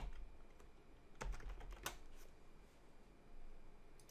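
Computer keyboard typing a short entry: about half a dozen separate, faint keystroke clicks with short pauses between them.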